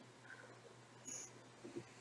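Near silence: faint room tone, with a brief faint sound about a second in and another near the end.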